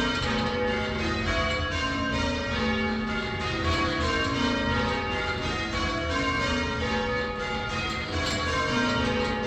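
Tower bells being change-rung full circle: the old St Martin-in-the-Fields bells, now the Swan Bells, strike one after another in an even rolling sequence, ringing rounds just after the treble has been set going.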